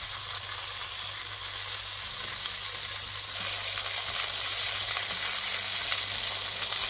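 Flour-dusted plaice fillets shallow-frying in olive oil: a steady sizzle that gets louder a little over halfway through.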